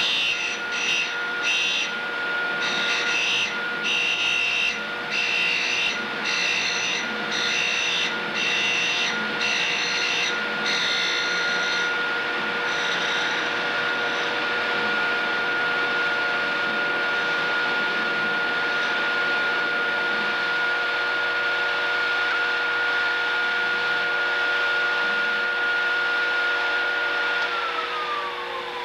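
Tool and cutter grinder motor running with a steady hum while a countersink is ground on a cup wheel. The grinding comes in short strokes about twice a second for the first dozen seconds, then only the motor is heard. Near the end the motor is switched off and its hum falls in pitch as it winds down.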